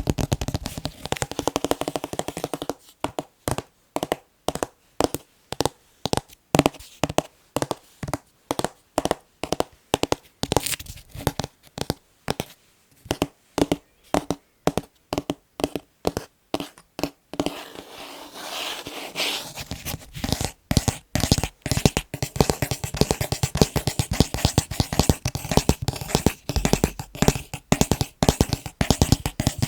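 Tapping on picture frames: quick, dense tapping at first, then slower separate taps a few a second for a long stretch, then fast tapping again for the last third.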